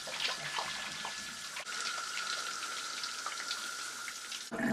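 Shower spray running steadily onto a tiled floor, an even hiss of falling water. A faint steady high tone joins about two seconds in.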